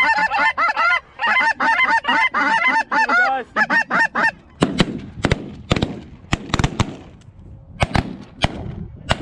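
Many snow goose calls overlapping in a rapid, continuous honking clamour. It stops about four seconds in and gives way to a volley of shotgun blasts, about ten shots over the next four and a half seconds, as the hunters open fire on the decoying flock.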